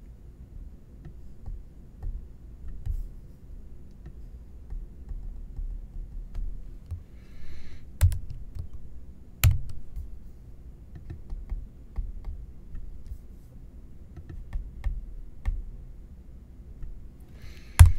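Typing on a computer keyboard: a string of light, irregular key clicks, with a few louder clicks, the loudest just before the end.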